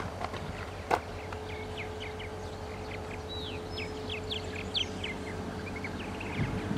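Songbirds chirping, many short quick high calls, over a steady low hum, with a single click about a second in.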